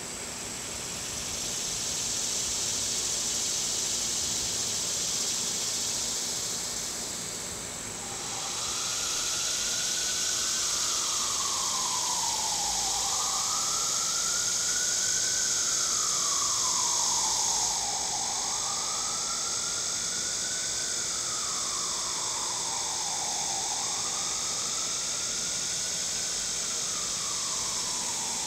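Steady high hiss throughout. From about a third of the way in, a distant siren wails, one tone rising and falling slowly about every five seconds.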